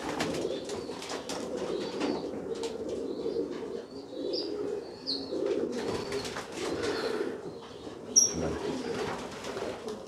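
Several homing pigeons cooing continuously, with light rustling and a few brief high chirps.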